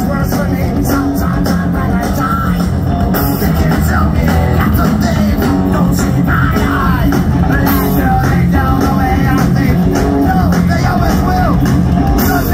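Punk rock band playing live and loud: distorted electric guitar, bass and drums, with a male singer's voice over the band.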